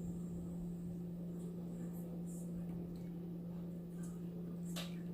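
A steady low hum with a few faint, brief clicks and ticks scattered through it.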